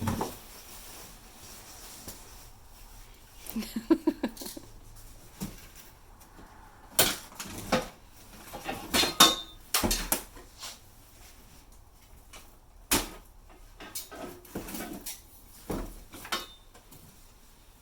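Irregular clinks, knocks and short rattles of metal grill parts and bagged hardware being unpacked and handled.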